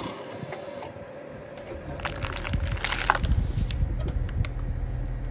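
Plastic toy cracking and crackling under a car tyre as the car rolls over and off it, the crackles bunched about two to three seconds in. A low rumble of the moving car comes in just before them.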